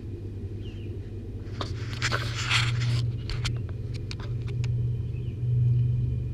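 Steady low purring from the young wild cats wrestling, with a burst of fur-and-clothing rustling and scuffling about two seconds in and a few sharp clicks of paws and claws after it.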